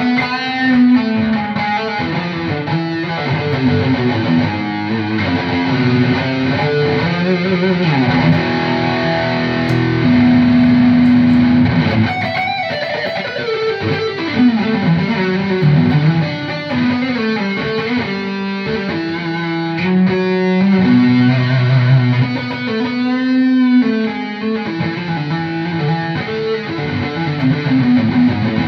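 ESP E-II Horizon electric guitar with EMG pickups, played through a distorted lead-channel preset: a lead line of held notes with string bends and vibrato.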